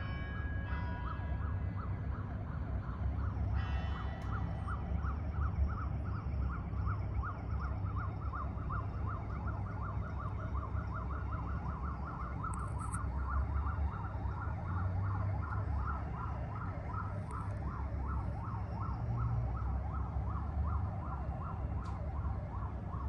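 Motorcade sirens warbling rapidly, the pitch sweeping up and down several times a second, over a low traffic rumble. Near the start the last slow strokes of the cathedral's tolling bells ring out and die away.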